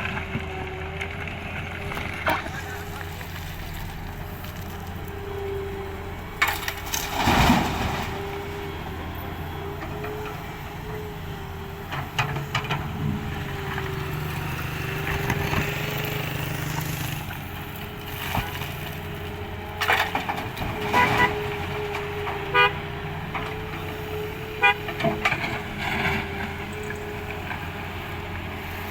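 Hydraulic excavator running steadily with a wavering hydraulic whine, and the bucket clattering and scraping against broken road material several times.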